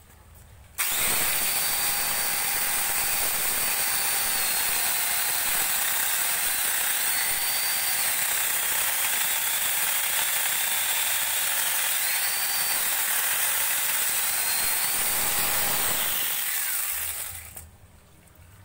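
Electric angle grinder fitted with a mini chainsaw attachment, switched on about a second in and run against a tree trunk: a loud, steady high whine that dips in pitch now and then as the chain bites into the wood, then spins down near the end.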